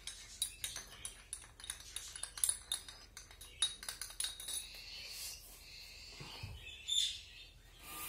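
A spoon clinking rapidly against a small cup as it stirs, then several high chirping calls from cockatiel chicks, one short and sharp about a second before the end.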